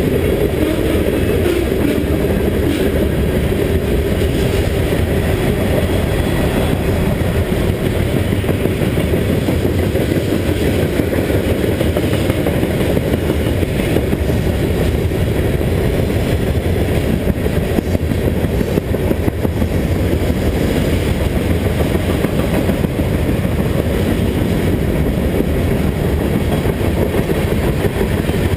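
Steady low wind rumble buffeting the microphone of a camera carried on a moving bicycle, with no break or change.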